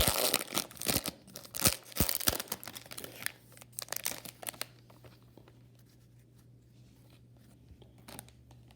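A baseball card pack's wrapper being torn open and crinkled, with a dense crackling rustle for about the first four seconds. Then it goes quiet apart from a faint hum and a small click near the end.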